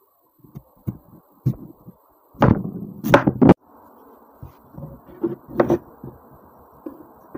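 A cleaver chopping through a raw sweet potato and beetroot, its blade knocking on the cutting board: a string of light knocks, with about three heavy chops in a cluster near the middle.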